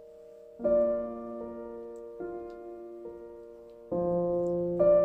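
Background piano music: slow, held chords, with a new chord struck every second or two.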